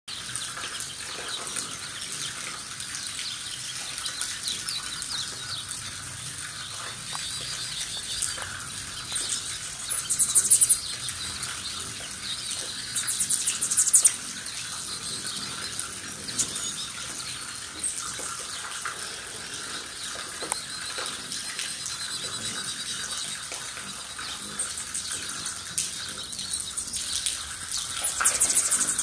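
Hummingbirds whirring and chittering around feeders over a steady hiss of light rain. Louder bursts of close wing buzz and high chatter come about ten seconds in, again around fourteen seconds, and near the end.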